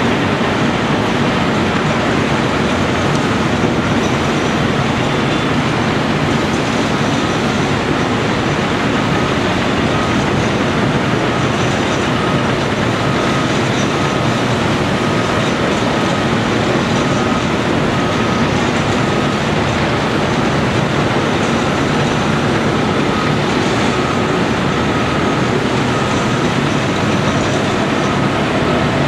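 Heavy diesel engine of a Caterpillar 345C L excavator running steadily under load, a constant deep rumble with a thin high tone that comes and goes.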